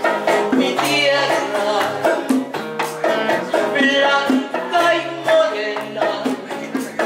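Live Latin American folk song: a woman singing over a strummed nylon-string classical guitar, with hand percussion.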